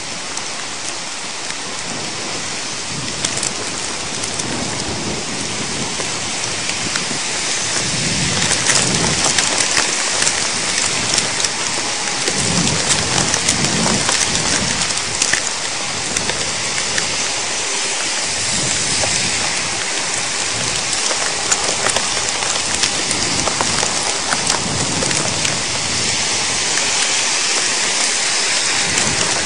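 Thunderstorm downpour: heavy rain mixed with hail pelting down, with many sharp ticks of hits, growing heavier about eight seconds in. Low rolls of thunder rumble underneath.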